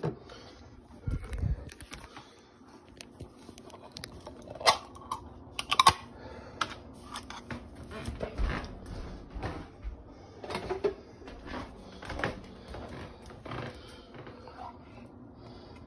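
Irregular clicks, taps and knocks of kitchen items being handled on a countertop, the two sharpest about five and six seconds in.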